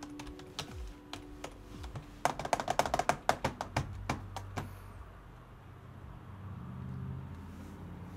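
Computer keyboard typing: scattered keystrokes, then a quick run of them about two seconds in, as a ticker symbol is typed to bring up a new chart. The clicks stop about halfway through, leaving faint background music.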